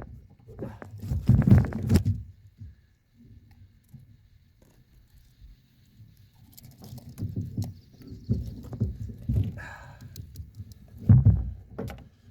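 Irregular low thumps and scuffling from a hooked bowfin thrashing while it is handled for release, with a quieter lull in the middle and a few sharp knocks.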